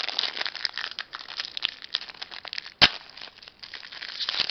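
Plastic wrapper of a Triple Play baseball card pack being torn open and crinkled by hand, a dense run of crackles, with one sharp snap a little before three seconds in.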